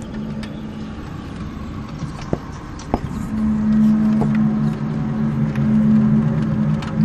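A steady, low droning hum of unknown origin in the sky, like a long horn note, with one unchanging pitch. It fades soon after the start and swells back in about three seconds in. Two sharp clicks come just before it returns.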